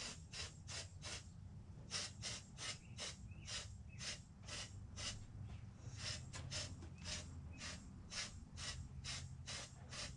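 Hand-held powder coating gun spraying in short puffs of compressed air, about three a second, with a brief pause about midway. A steady low hum runs underneath.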